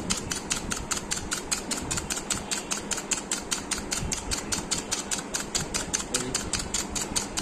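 Rapid, perfectly regular mechanical ticking, about six clicks a second, over a low rumble.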